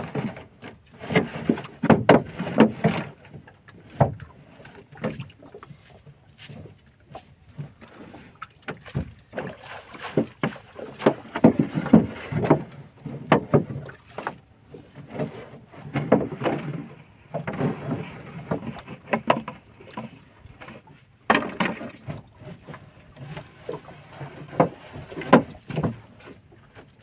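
Collapsible net crab traps being hauled aboard and folded in a small boat: irregular clusters of knocks and clatter from the trap frames against the hull, with the rustle of wet netting.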